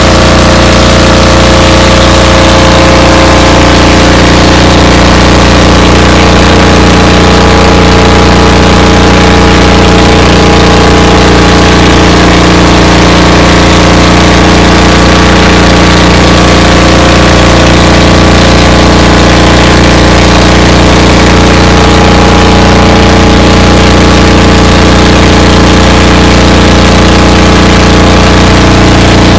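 An engine running steadily, loud and unchanging, with a constant hum of several steady tones.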